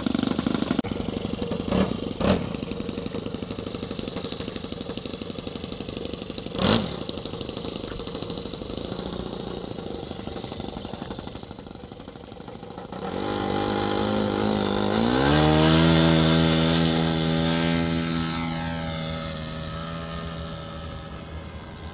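Glow-fuel nitro engine of a Gee Bee RC plane buzzing in flight, with a few sharp knocks in the first seconds. About two-thirds of the way in the drone grows louder and its pitch climbs, then it slowly fades away.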